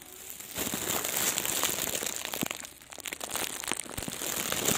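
Rustling, crinkling noise with many scattered small clicks, starting up about half a second in and dropping briefly around three seconds.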